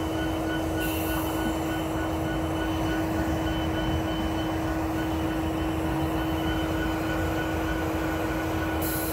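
Norfolk Southern diesel locomotives, led by an EMD SD70ACe, running close by with a steady rumble and one steady tone held throughout.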